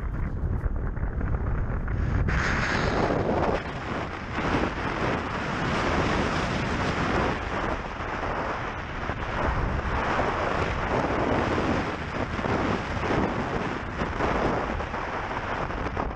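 Rushing airflow over the microphone of a camera mounted on a hang glider in flight, rising and falling in gusts and getting brighter about two seconds in.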